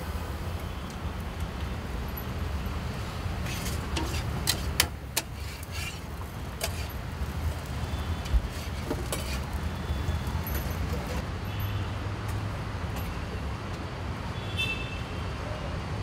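Steady street traffic rumble, with a cluster of sharp metallic clinks of steel utensils about four to five seconds in and another single clink a few seconds later.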